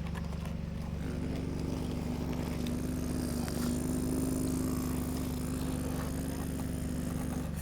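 Excavator running steadily, a low engine hum under a higher whine. The whine steps up in pitch about a second in and again a little past the middle, then drops near the end as the machine works.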